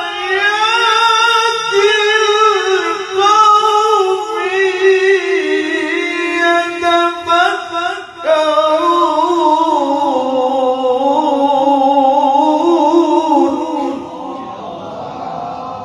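A man's voice reciting the Quran in the melodic tilawah style, holding long ornamented notes with a wavering pitch. About eight seconds in it breaks briefly and resumes on a lower phrase, then grows quieter near the end.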